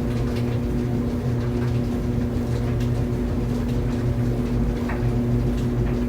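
Laundry dryer running steadily: a constant low motor hum and drum rumble, with faint, irregular light ticks.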